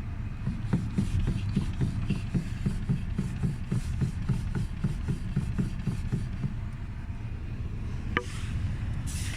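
Lada Vesta driving off in hard frost with a rapid, regular knocking, about four knocks a second, over the car's low running rumble; the owner blames the steering rack, which knocks only in severe cold. The knocking fades out after several seconds, and a sharper click or two follows near the end.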